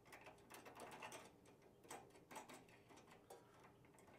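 Faint, irregular small metallic clicks of a jam nut being spun by hand onto a threaded cable end fitting.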